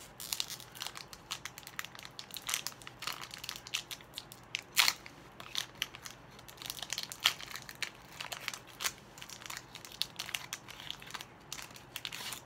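Foil wrapper of a Pokémon Hidden Fates booster pack crinkling and crackling as it is handled and torn open by hand, in irregular bursts, with a few louder crunches about five and seven seconds in.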